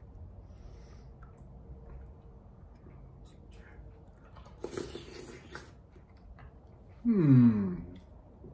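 Quiet eating sounds from a man having soup: soft chewing and small clicks, then a short slurp from a spoon about five seconds in. Near the end comes a brief falling hum from his voice.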